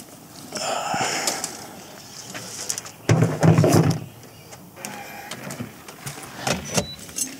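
Gear being handled in a pickup truck's bed: rustling, then a heavy clatter lasting about a second near the middle, followed by lighter clicks and knocks.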